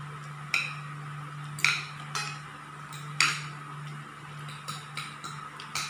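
Metal forks and spoons clinking and scraping against dinner plates while eating, with about five sharper clinks among softer ticks, over a steady low hum.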